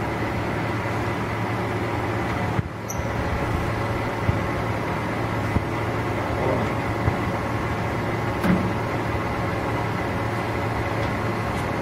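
Steady machine hum of a large engine lathe, with several steady tones. A few light clicks and knocks come through as the tailstock handwheel is worked.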